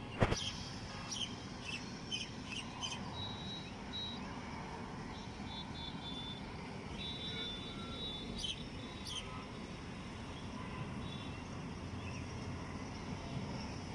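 Birds chirping and whistling in short high calls over a steady low hum of distant town traffic, with a sharp click just after the start.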